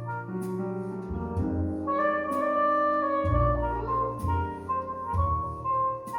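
Instrumental break of a jazz ballad: a wind instrument plays a melody of held notes over piano chords and a bass line.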